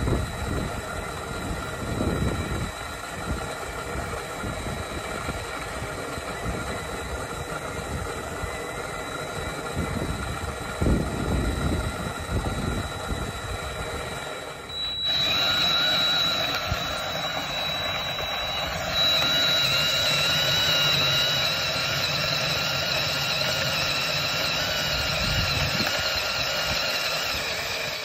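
Cordless drill spinning a hand-fed grain mill's rollers, steadily crushing malt for brewing. About halfway the sound changes abruptly to a louder, steadier run with a high-pitched whine.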